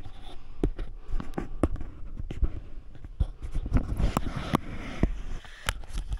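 Footsteps and movement over debris inside a collapsed old building: an irregular run of sharp knocks, crunches and scrapes.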